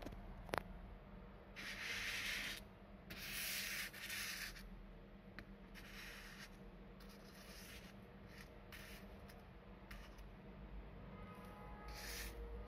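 Fingers rubbing and sliding a fine chain necklace over a smooth marble-patterned surface, heard as several short, faint scratchy swishes of about a second each, with a sharp click about half a second in.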